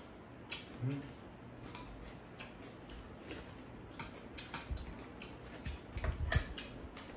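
Spoons and chopsticks clicking against bowls during a meal, irregular light taps, with a few soft eating noises.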